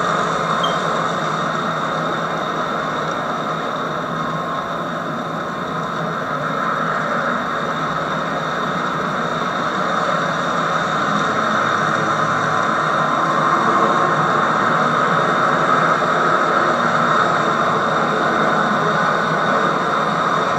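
HO-scale model freight train rolling past: a steady whir of its wheels running on the rails, on old VHS tape with hiss. It dips slightly a few seconds in and then builds again.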